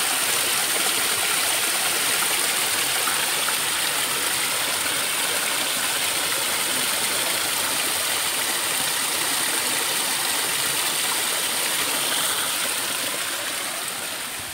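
A small stream cascading over boulders: a steady rush of splashing water that grows fainter near the end.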